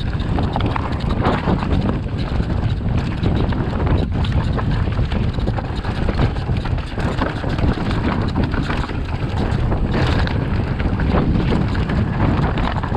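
Mountain bike rolling over rough, stony trail: a constant clatter and rattle of tyres and bike parts, with wind buffeting the microphone.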